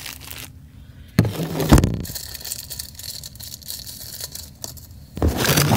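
Crinkling and tearing of a plastic blister pack as it is opened by hand, in two loud crackly spells: one about a second in, one near the end.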